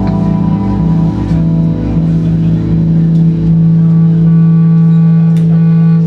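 Live rock band's amplified electric guitars holding loud, droning sustained notes. The low note shifts a few times, then settles and holds steady about halfway through, with only a few scattered drum or cymbal hits.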